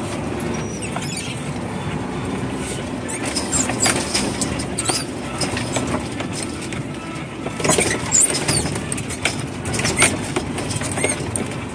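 Scania truck's diesel engine running steadily, heard from inside the cab, with rattles, knocks and short squeaks from the cab and rig jolting over a rutted dirt track. The loudest knocks come about four, eight and ten seconds in.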